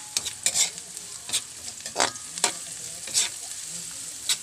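Chopped garlic and onion sizzling in hot oil in a steel wok, with a metal spatula scraping and clinking against the pan in irregular strokes as it stirs.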